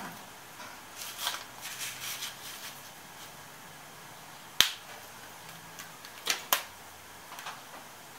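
Rubber bands snapping and hands handling a workpiece clamped in a milling-machine vise: a few sharp snaps, the loudest about halfway through and two more close together a little later, with soft rustling in the first few seconds.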